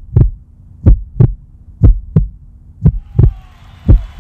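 Heartbeat sound effect: paired low thumps, lub-dub, about once a second over a low steady hum. About three seconds in, a wash of hiss with faint gliding tones fades in under the beats.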